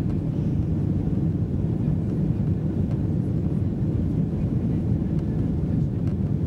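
Steady low rumble of a Boeing 777-200's engines and rushing air, heard from inside the passenger cabin in flight.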